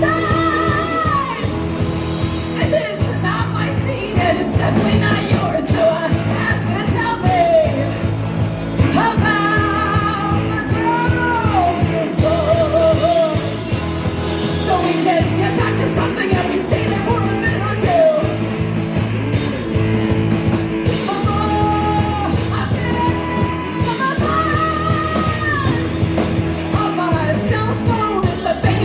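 A live rock band playing a song, with a singer's vocal lines over the full band.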